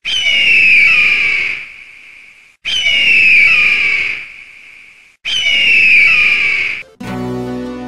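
Three long, shrill screaming cries of a bird of prey, about two and a half seconds apart, each falling in pitch and trailing off. Music with held notes comes in near the end.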